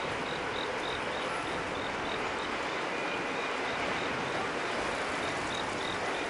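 Steady hiss of rain and wet street noise, even and unbroken.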